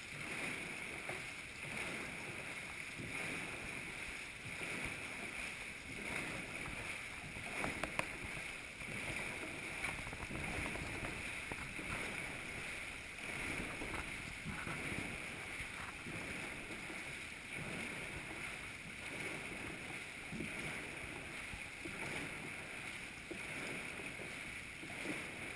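Dragon boat paddles churning the water of an indoor paddling tank: a steady wash of splashing as the crew strokes together. A brief knock about eight seconds in.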